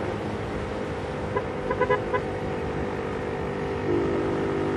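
Vehicle engine running with road noise, with a few short high beeps about one and a half to two seconds in and a louder engine hum setting in near the end.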